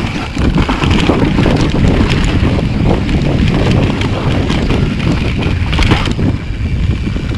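Mountain bike descending a rough dirt trail at speed: wind buffeting the camera microphone over the rumble of tyres on dirt, with frequent knocks and rattles from the bike over roots and bumps. The clatter eases a little after about six seconds as the track smooths out.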